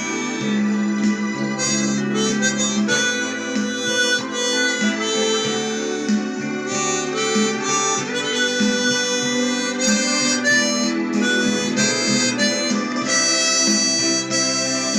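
Tombo Unichromatic chromatic harmonica playing a melody in sustained, changing notes, with a steady lower accompaniment underneath.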